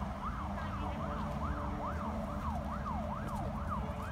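A siren yelping, its pitch sweeping quickly up and down about two and a half times a second, cutting off suddenly near the end.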